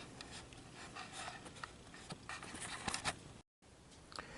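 Faint scattered clicks and light knocks of small metal parts and hand tools being handled, over a low hiss, cut off by a brief dead gap near the end.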